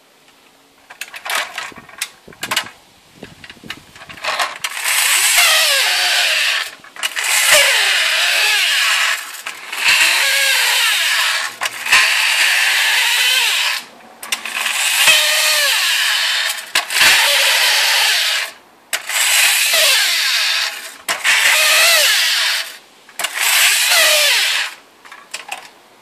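Friction-powered sparking tin toy bulldozer's flywheel motor whirring loudly in about nine spurts of roughly two seconds each, the pitch wavering as the flywheel speeds up and runs down, with the flint sparking mechanism grinding along. Short clicks and rattles of the tin toy come first.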